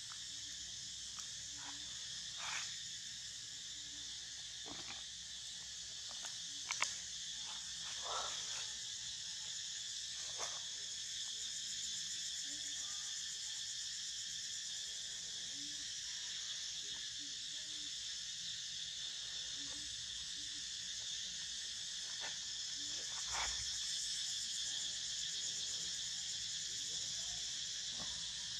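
Steady, high insect chorus droning throughout, with a few short clicks and rustles, the sharpest about seven seconds in.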